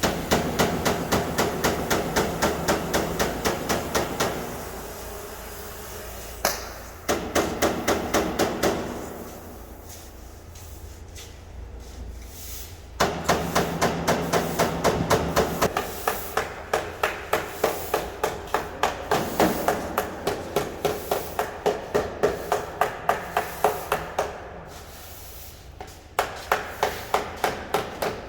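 Hand hammer beating metal in fast runs of even blows, about three a second, broken by short pauses: panel beating on car bodywork.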